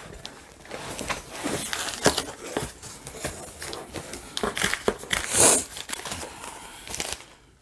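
A large cardboard box being opened by hand: irregular rustling, clicks and scrapes, with one longer, louder rasp about five and a half seconds in.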